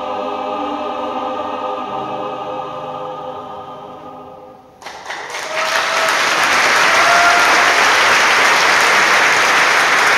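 Mixed choir holding its final chord, which fades away over about five seconds. Then audience applause breaks out suddenly and goes on loud and steady.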